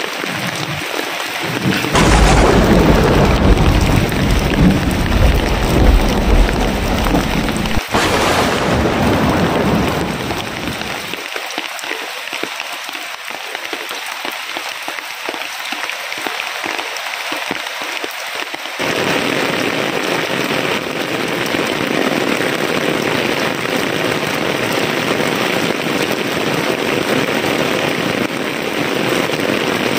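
Heavy rain falling steadily, with a thunderclap about two seconds in whose low rumble rolls on for several seconds. After the rumble fades, the rain carries on alone and then grows louder and fuller.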